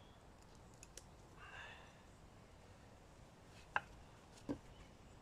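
Knife tip levered in dry oak heartwood: a few faint, sharp clicks and a brief creak as the wood fibres give under the pry. The clearest is a sharp click a little before the four-second mark, followed by a duller knock.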